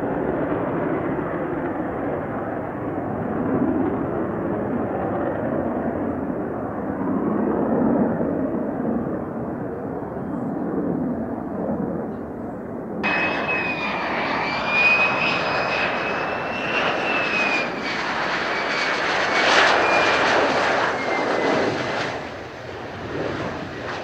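Jet noise of a Lockheed Martin F-35A Lightning II: a deep, steady rumble as it climbs away after a non-afterburner takeoff. About halfway through, the sound switches abruptly to a nearer F-35A, its engine noise carrying a high whine that slowly falls in pitch, as it comes in to land in heavy rain.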